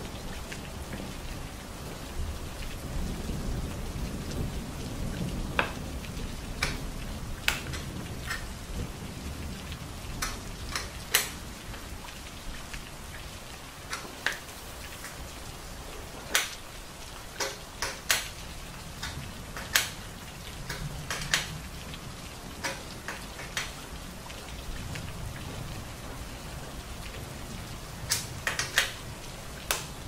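Steady rain hiss with patches of low rumble, and sharp clicks and taps scattered irregularly throughout.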